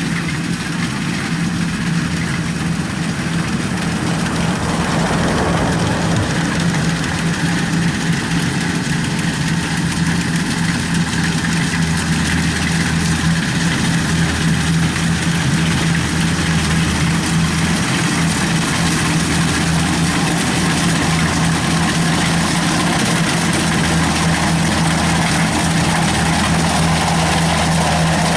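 Kubota DC93 rice combine harvester running steadily, its diesel engine holding a constant pitch under a broad mechanical noise.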